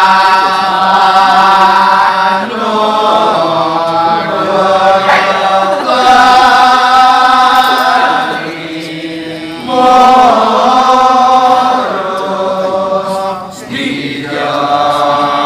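Kecak chorus of men's voices chanting in long held phrases over a steady low note, dipping and swelling in loudness between phrases.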